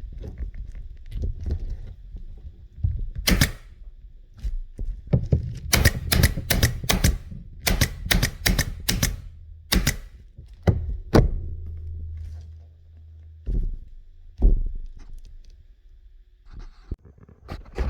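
Pneumatic stapler firing staples one after another, sharp snapping shots in quick runs with pauses between, among softer knocks. A low steady hum runs underneath for a few seconds in the second half.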